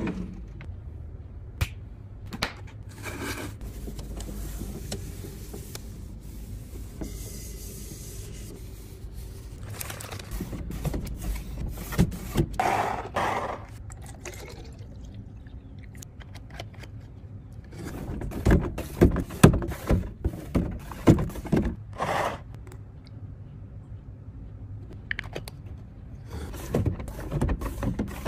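Kitchen restocking sounds: plastic containers, snack packs and small plastic bottles handled and set down with scattered clicks, knocks and scrapes. About halfway through, juice is poured into a small plastic bottle, and near the end capped plastic bottles knock together as they are lined up.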